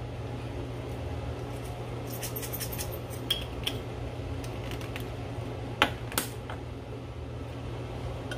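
Black-pepper grinder being twisted by hand, grinding peppercorns in a quick run of crackling clicks, then two sharp knocks a little after the middle, over a steady low hum.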